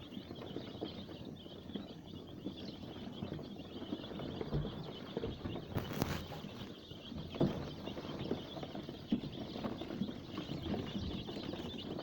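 A brood of five-day-old layer chicks peeping steadily, with scratching and rustling in sawdust bedding and a sharp tap about six seconds in.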